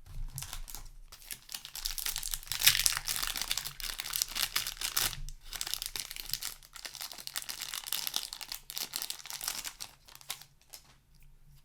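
Foil wrapper of a Magic: The Gathering set booster pack being torn open and crinkled, an uneven crackling that is loudest about three seconds in and dies down near the end.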